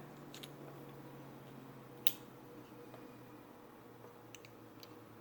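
Drain-tube fitting parts being handled and pushed into place: a few light ticks and one sharp click about two seconds in, over a faint steady hum.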